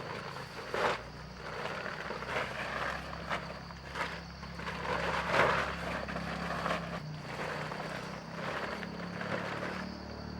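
Irregular rustling with a few short knocks, over a low steady hum and a thin, high, steady whine.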